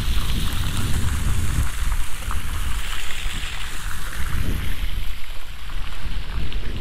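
Wind buffeting the microphone: a low, uneven rumble under a steady rushing hiss.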